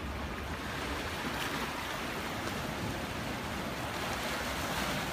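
Small sea waves washing against shoreline rocks: a steady wash of surf with a low rumble beneath.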